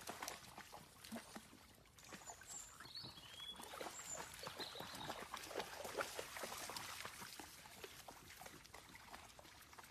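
Faint dog play sounds and scuffling as a black dachshund and another small dog tug back and forth over a stick on bare dirt. A few short high chirps come about two to four seconds in.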